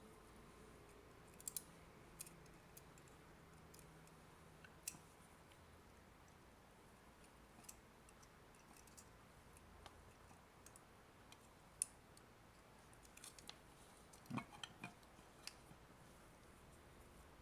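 Scattered faint clicks and taps from tweezers and the small plastic parts of an opened AC adapter being handled, over near silence. The sharpest tick comes about twelve seconds in, and there is a short run of clicks a couple of seconds later.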